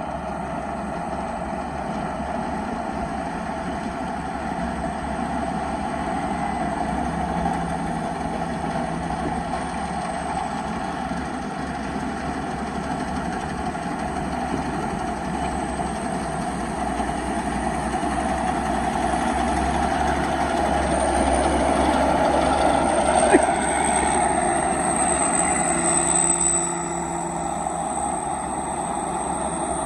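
Turbocharged single-cylinder 195 diesel engine running steadily on a small farm dump vehicle, with a high turbo whistle that rises and holds through the second half. The engine gets louder for a while, then drops back near the end.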